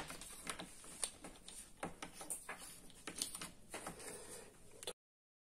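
Light handling noise from a switched-off angle grinder being lifted and turned in the hands: a few faint clicks and knocks, with the power cord rustling. The sound cuts off abruptly near the end.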